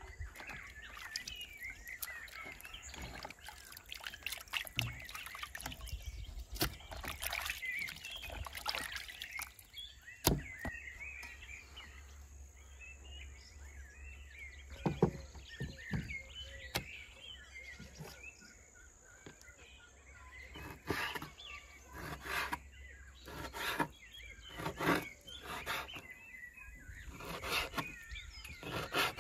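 Small birds chirping through the first half, with water splashing and pouring as raw meat is rinsed in a basin. In the last third, a steel cleaver chops meat on a wooden cutting board in repeated knocks, about one to two a second.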